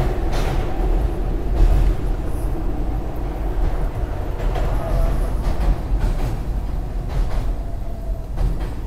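SEPTA Market-Frankford Line subway car running through a tunnel, heard from inside the car: a steady low rumble with a few sharp clicks and a faint wavering whine. It gets a little quieter toward the end.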